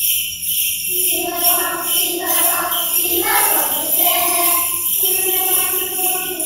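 Jingle bells shaken in a steady pulse, joined about a second in by a choir of young children singing a French song.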